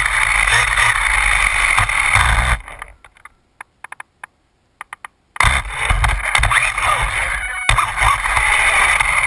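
Losi Mini 8ight RC buggy running hard: its electric motor and drivetrain whine, rising and falling with the throttle, over the rattle of the car on the floor. The sound cuts out almost completely for about three seconds in the middle, with only a few clicks, then comes back as loud as before.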